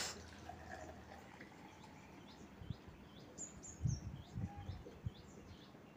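Faint chirping of a small bird: short falling notes repeated about twice a second, with a few higher chirps about halfway through. A few soft low thumps are also heard.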